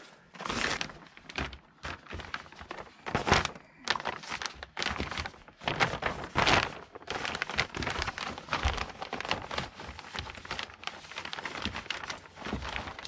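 Clear 6-mil polyethylene vapour barrier sheeting being handled, tucked and pulled tight by hand, crinkling and rustling in irregular bursts, the loudest about three seconds in and just past the middle.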